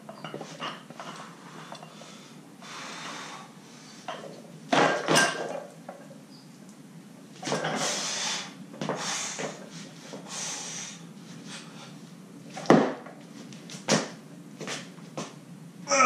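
A heavy clean and jerk with a loaded barbell of 215 lb: the clean is caught with a loud clatter of bar and feet about five seconds in, followed by several heavy breaths while holding the bar at the shoulders, then two sharp knocks as the jerk is driven overhead and the feet land.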